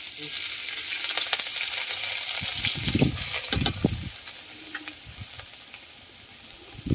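Hot oil in a steel wok sizzling hard as chopped green chillies and other chopped ingredients are dropped into it. The sizzle dies down over the second half, and there are a few low knocks about three seconds in.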